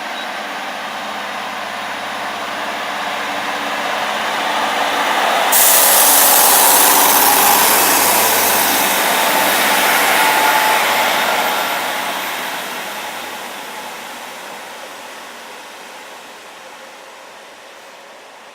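Class 150 diesel multiple unit running through the station, its engine and wheels growing louder. The noise is loudest from about six to eleven seconds in, then fades away as the train moves off.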